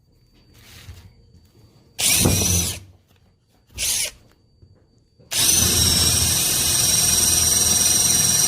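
Cordless drill triggered in two short bursts, then held running for about three and a half seconds with a steady whine.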